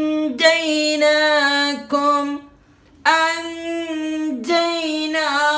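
A voice chanting the Quranic word 'anjaynakum' in a drawn-out melody, twice, with the nasal n sound concealed and held as in ikhfa. The two phrases are separated by a short pause, and the second begins about three seconds in.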